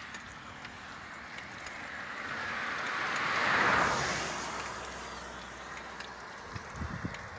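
A car passing along a wet highway: tyre and engine noise swells to a peak about three and a half seconds in, then fades away.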